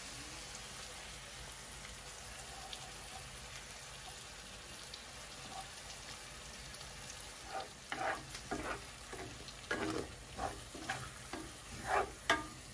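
Onions sizzling steadily in a hot cast-iron skillet as cream goes in, then, a little past halfway, a wooden spoon stirring and scraping through the sauce in quick uneven strokes.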